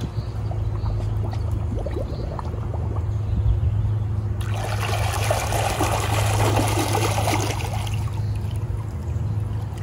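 Dolphin Nautilus robotic pool cleaner working at the pool's waterline over a steady low hum. From about four and a half seconds in to about eight seconds, it churns the surface with a louder burst of splashing and gurgling water.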